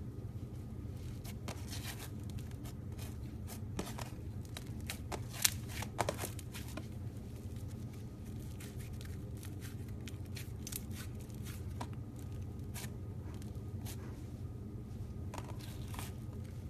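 Slime being squeezed and poked by hand, giving irregular crackles and small pops, the loudest about five seconds in, over a steady low hum.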